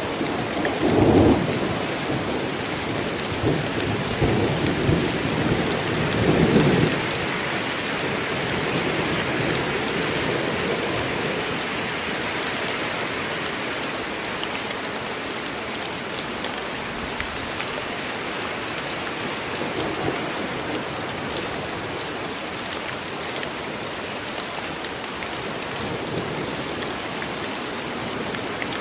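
Steady heavy rain falling on forest foliage, with rolling thunder rumbling through the first several seconds and dying away about seven seconds in.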